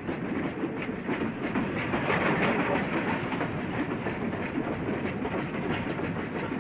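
Steam-hauled goods train running along the track, heard from the locomotive's footplate: a steady running noise with the clickety-clack of wheels over the rail joints.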